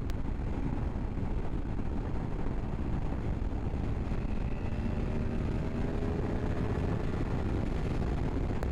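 Wind rushing over the microphone of a riding motorcyclist, with the Honda VFR800F's V4 engine faintly under it, its note rising slowly in the second half.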